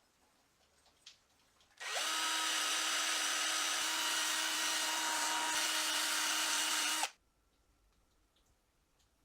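A small handheld power tool spins up about two seconds in, runs at a steady pitch for about five seconds, then cuts off suddenly.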